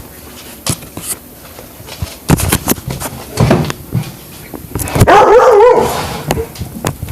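Dogs play-fighting: scattered thumps and scuffling, then one loud wavering bark-whine about five seconds in.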